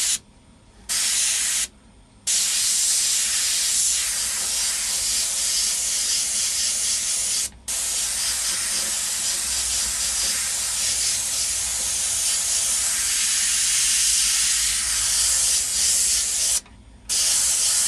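Airbrush spraying paint with a steady hiss of air, breaking off sharply four times: twice in the first two seconds, once for a moment about seven and a half seconds in, and once near the end.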